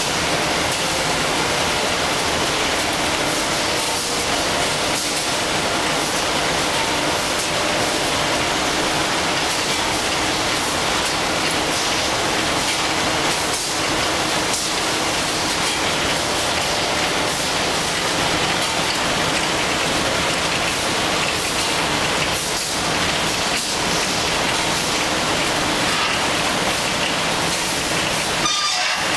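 Automatic facial tissue production line running: its conveyor belts and machinery make a steady, dense mechanical noise with a faint hum and no pauses.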